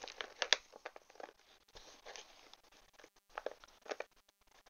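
A clear plastic sleeve crinkling and paper rustling as hands rummage through it, in irregular bursts, the loudest about half a second in.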